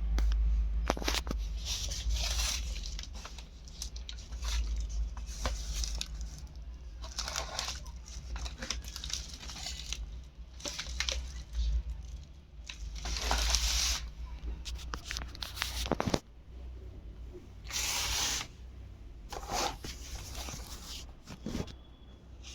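Product packaging being torn and crinkled open by hand: a series of separate rips and rustles with small clicks between them, over a low steady hum.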